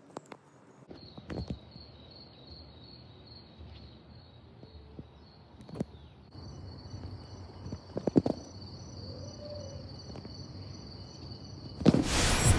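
Insects trilling steadily with a fast, even pulse, over quiet outdoor ambience, with a few scattered footsteps and knocks. Near the end a sudden loud rushing noise comes in.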